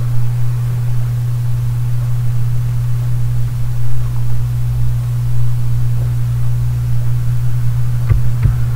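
Steady low electrical hum with a faint hiss, and two faint clicks near the end.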